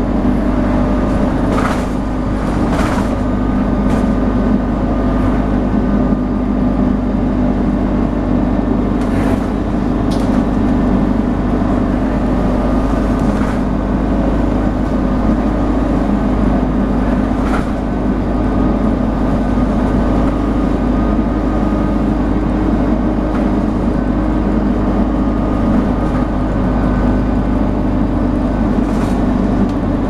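Dennis Dart SLF / Alexander Enviro 200 single-deck bus heard from inside the passenger saloon, its diesel engine running at a steady speed under a constant road drone, with a thin steady whine above it. A sharp rattle or knock from the bodywork comes now and then, about seven times.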